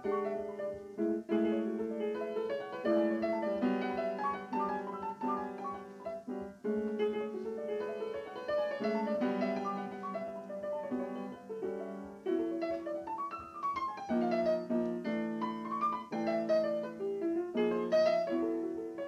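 Piano music: chords under a moving melody, with quick rising runs of notes in the second half.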